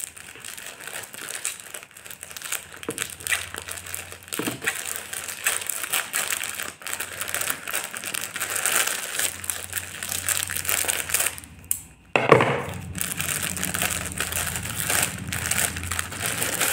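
Plastic courier mailer crinkling and crackling as it is cut open with scissors and pulled apart, with many small snips and rustles. A sudden louder burst comes about twelve seconds in.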